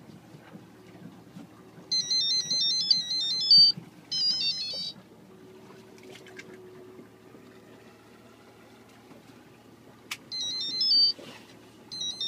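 An electronic beeping melody of high, rapidly stepping tones, in four short bursts with a long pause in the middle, over a faint low hum.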